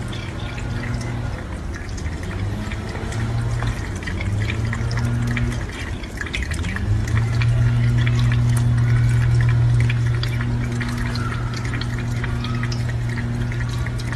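Kitchen faucet running in a thin stream into a stainless steel sink, with a cat lapping at the water in quick small clicks and splashes. Under it a steady low hum that shifts pitch a few times, with a short rising glide about halfway through, after which it is louder.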